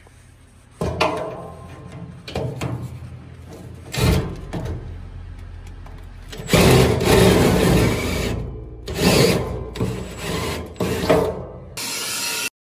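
Small hand drill opening up a misaligned bolt hole in a steel bench frame, running in several short runs with a long one midway. The sound cuts off suddenly shortly before the end.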